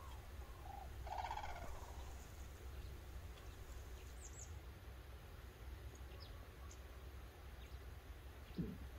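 Red-crowned crane calling about a second in: a short call, then a louder one of about half a second. A steady low rumble runs underneath, with a few faint high chirps midway and a low thump near the end.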